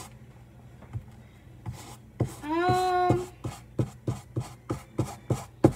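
Paintbrush strokes on a canvas: a few soft strokes, then a quick, even run of short scratchy strokes, about three a second, in the second half. About halfway through there is a short hummed note from the painter.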